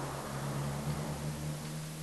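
A steady low hum made of several held pitches, over a constant hiss.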